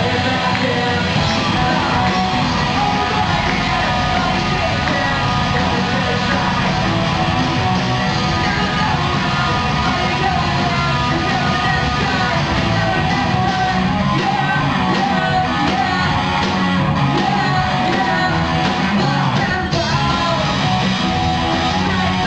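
Live rock band playing loudly: electric guitars and drums under a singer's vocals, steady throughout.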